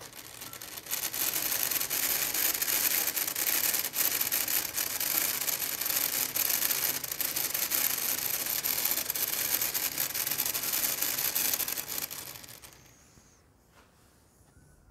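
Small DC motor salvaged from a CD reader spinning a plastic pinion and a larger plastic gear on a nail axle: a steady whirring rub that runs too fast for a turntable. It fades out and stops about 12 seconds in.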